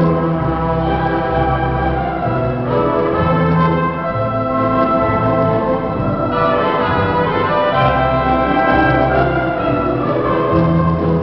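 Symphony orchestra playing live: held chords across the whole ensemble, with the harmony moving every second or two.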